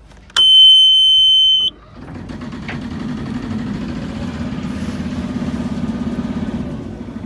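Engine panel warning buzzer sounds, a loud steady high beep of just over a second, as the key is switched on; then the sailboat's inboard diesel starts and settles into a steady, even idle.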